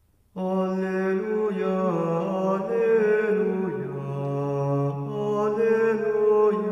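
Slow, chant-like intro music of long held notes that change pitch in steps every second or so, starting suddenly about a third of a second in.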